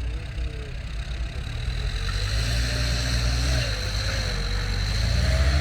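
Dump truck's diesel engine running steadily, its pitch shifting slightly now and then, with a faint steady high whine above it.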